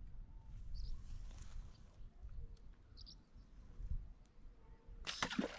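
Light wind rumbling on the microphone, with two brief high bird chirps. Near the end comes a sudden sharp snap as a fishing slingshot is shot at the water.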